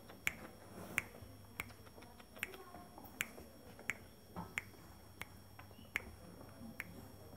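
A dozen sharp finger snaps at an uneven pace, about one or two a second.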